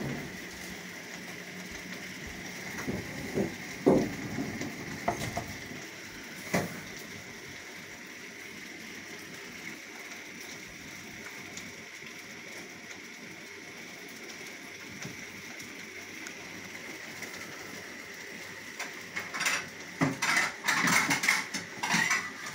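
Rain falling steadily, with a few sharp taps of drops striking a hard surface close by. Near the end the taps thicken into a quick run of clinking hits.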